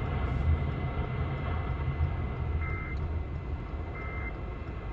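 Moving car's cabin noise, a steady low road rumble, with two short electronic beeps about one and a half seconds apart in the second half.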